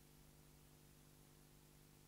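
Near silence: a faint steady low hum and hiss.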